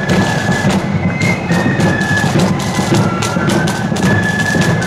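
Marching flute band playing a tune: flutes carry the melody in held, stepping notes over a steady beat of snare and bass drums.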